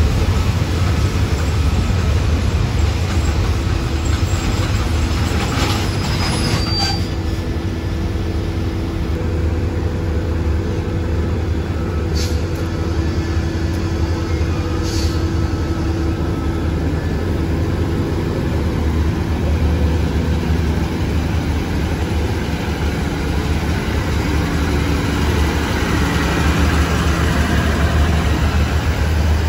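State Railway of Thailand passenger train rolling slowly through a station, heard from aboard: a steady low rumble of wheels and running gear on the rails, with a few sharp clicks.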